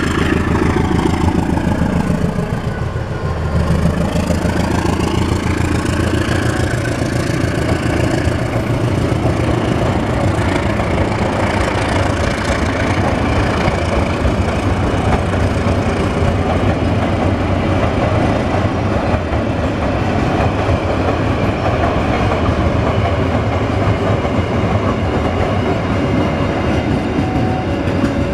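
CC 201 diesel-electric locomotive running past close by in the first few seconds, its engine pitch bending as it goes by. A long train of empty tank wagons follows, rolling past with a steady rumble and clatter of wheels on the rails.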